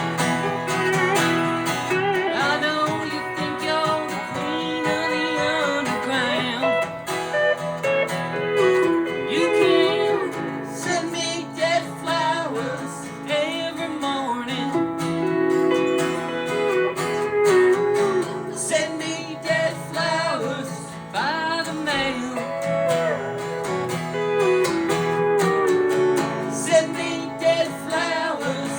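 Country-rock music led by guitar, an instrumental break with a melody line over steady chords and no sung words.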